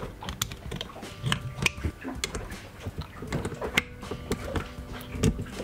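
A screwdriver working at the end cap of an old Lewmar windlass electric motor: irregular small metal clicks, taps and scrapes against the housing.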